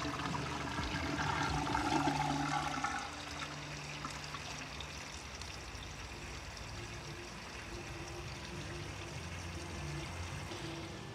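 Fuel pouring from a plastic jerrycan through its spout into a motorcycle's fuel tank, a steady flow that is louder for about the first three seconds and then settles to a quieter stream.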